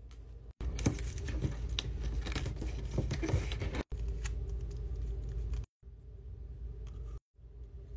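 Scissors cutting a paper strip in half: a run of crisp snips with paper rustling, followed by softer rustling as the thin paper strips are folded by hand. The sound drops out abruptly a few times.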